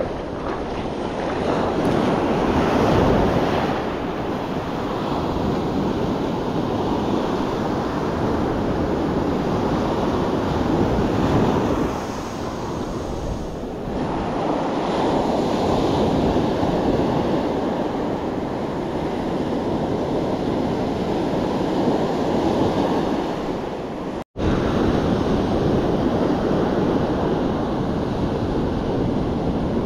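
Ocean surf washing and breaking on the shore, swelling and easing every several seconds, with wind buffeting the microphone. The sound cuts out for a split second once, late on.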